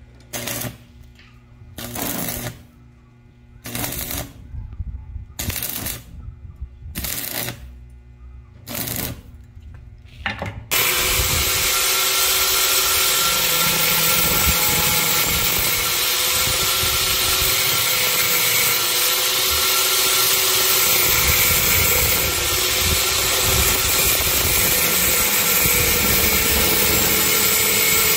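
Stick welder striking short arcs: about six brief crackling bursts a second or two apart as the welds are laid on a steel coil spring and pipe. About eleven seconds in, an angle grinder starts grinding steel, a continuous loud grinding noise with a steady motor whine that runs on to the end.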